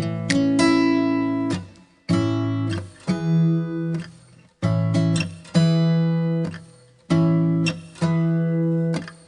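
Background music: an acoustic guitar playing slow plucked chords that ring out and fade, with short pauses between them.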